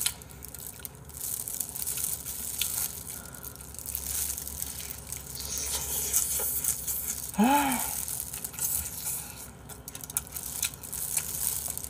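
Crunchy chewing of crispy fried chicken, the crust crackling in a steady stream of small clicks close to the microphone, with one short hummed "mm" about seven and a half seconds in.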